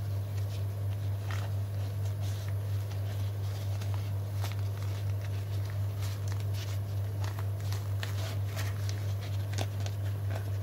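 Nylon zippered carry pouch of a digital clamp meter being handled: scattered light rustles and clicks as the pouch is opened and its test leads are moved about, over a steady low hum.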